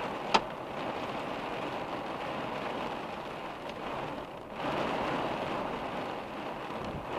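Steady rain falling on a car's windshield and roof, heard from inside the car. A single sharp tap about a third of a second in, and a brief lull just after four seconds before the rain comes harder again.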